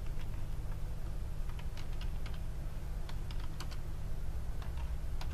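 Computer keyboard being typed on: irregular key clicks over a low steady hum.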